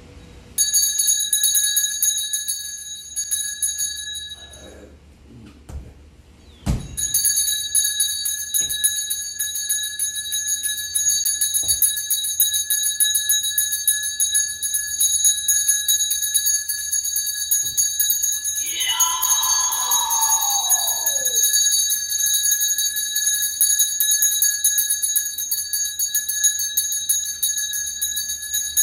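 Brass hand bell shaken rapidly and without pause, a bright steady ringing. It breaks off for about two seconds around five seconds in, with a sharp knock, then rings on. Around nineteen seconds in, a voice calls out over it in one long falling tone.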